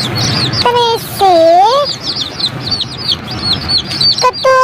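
A brood of young chicks peeping continuously, with rapid high, short chirps several times a second. Twice, about a second in and near the end, a louder, lower drawn-out call with a bending pitch stands out over the peeping.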